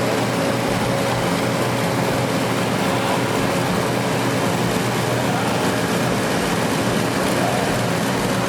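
Car engine running at a steady speed: a constant hum with no revving.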